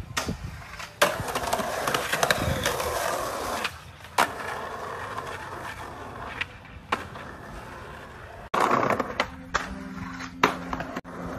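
Skateboard wheels rolling on concrete, broken by sharp clacks of the board popping and landing tricks, the loudest about a second in and a cluster near the end.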